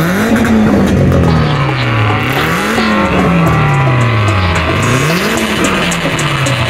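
Toyota Corolla Altis Grande with an aftermarket exhaust being revved in place three times, the engine note climbing quickly each time and then sinking slowly back down.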